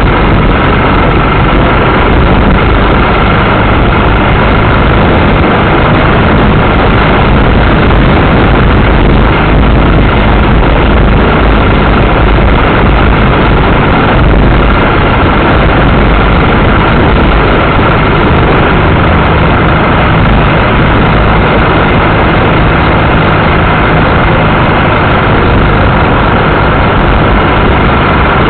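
Royal Enfield Classic 500's single-cylinder engine running steadily on the move, buried in a loud, steady rush of wind noise on the camera's microphone.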